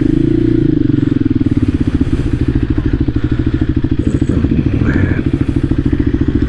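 Voge 300 Rally's single-cylinder engine running at low revs as the motorcycle rides slowly, a steady rapid putter of firing pulses. A brief higher tone sounds about five seconds in.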